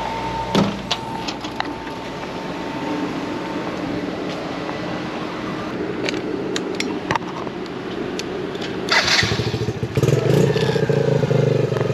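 Pit bike's small engine starting about nine seconds in, then running steadily, with handling clicks before it.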